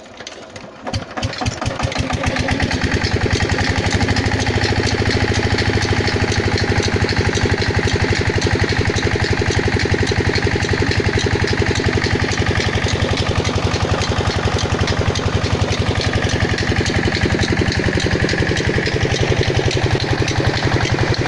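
23 hp diesel engine starting up: it catches about a second in and within two seconds settles into a steady, even-beating run, driving the tube-well water pump.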